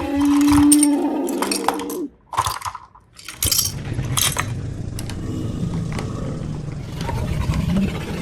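Small hard clicks and clinks of toy pieces being handled, with a short steady tone in the first second and a brief near-silent gap about two seconds in.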